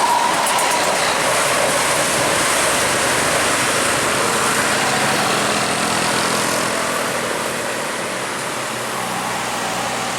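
Large bus driving past close by: a loud, steady rush of engine and tyre noise that slowly fades, with a low engine hum showing in the second half.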